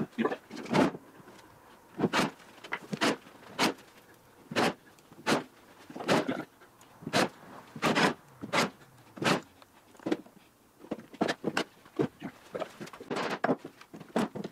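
Cordless drill driving screws through rail into plastic track ties in short bursts, about one a second and quicker near the end.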